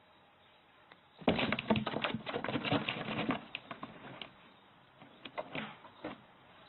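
Cardboard box rustling and scratching as a cat moves and claws inside it: a dense run of scratches starting about a second in and lasting about two seconds, then a few scattered ones.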